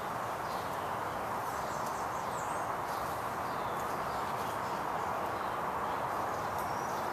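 Steady outdoor background noise with a few faint bird chirps, one a few seconds in and another near the end.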